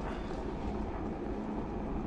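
Handheld butane kitchen torch burning steadily, its flame played on a brass alcohol-burner seam during soldering.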